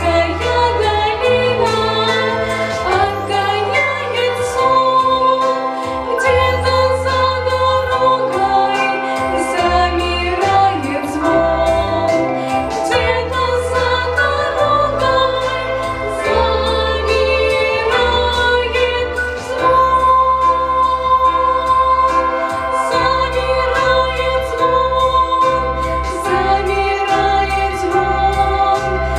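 Two women singing a slow song in duet over instrumental accompaniment, with held bass notes that change every second or two.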